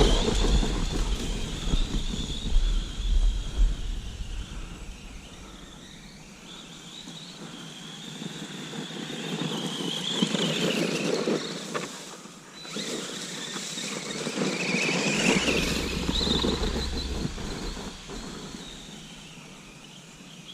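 Arrma Granite BLX 4x4 RC truck's brushless electric motor whining, gliding up and down in pitch as the truck speeds up and slows down, loudest in the first few seconds and swelling again twice later.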